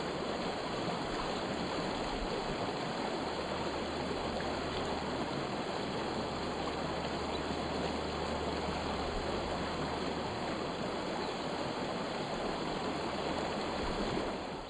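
Steady rush of a stream running over its bed, with no pitched calls over it, beginning to fade out near the end.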